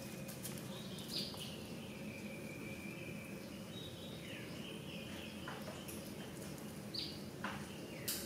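Outdoor ambience of birds chirping, with thin high calls and a few sharp chirps over a steady background of insects.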